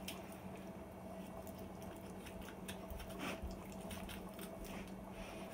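A knife scraping along raw chicken bone and the wet squish of flesh being pulled away from the carcass as the bird is deboned, in faint, irregular little clicks and squelches.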